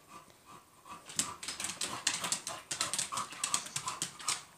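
English bulldog's claws clicking and scrabbling rapidly on a hardwood floor as it scurries after a laser dot, starting about a second in and stopping just before the end.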